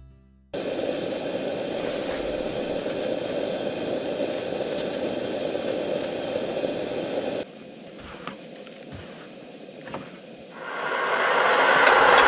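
Steady rushing roar of a pressurized burner. It drops for about three seconds to a quieter stretch with a few light clicks, then swells back near the end as a brass pressurized kerosene stove burning, really loud.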